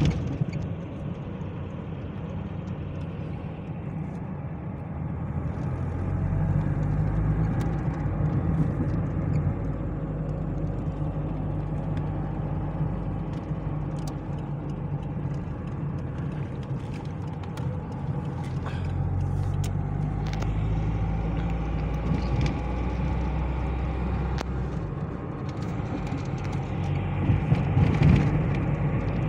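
Car engine and road noise heard from inside the cabin while driving, a steady low hum whose engine note shifts a few times as the car speeds up and slows. Occasional small clicks and rattles.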